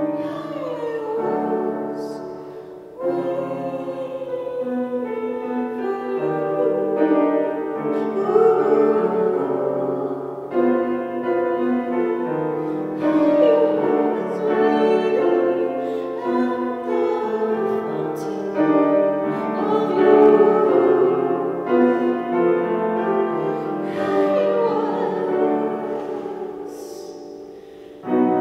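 A woman singing, with long sliding notes, to her own grand piano accompaniment.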